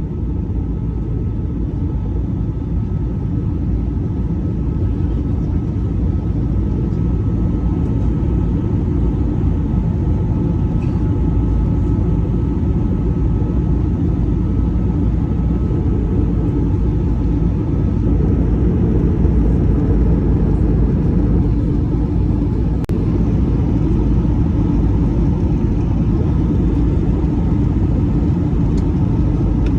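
Airbus A319 cabin noise: a steady, deep rumble of the jet engines and airflow with a faint steady hum above it, slowly growing a little louder.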